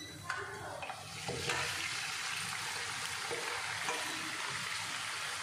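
Boiled mutton scraped from a steel bowl with a wooden spoon into a wok of hot oil, onions and spice paste: a few scrapes and clicks, then a steady frying sizzle from about a second and a half in.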